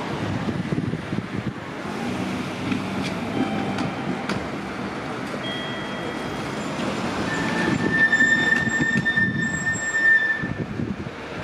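Meitetsu Inuyama Line train passing over the level crossing, its wheels rumbling and knocking over the rails. From about seven seconds in, the wheels give a high, steady squeal that stops shortly before the end.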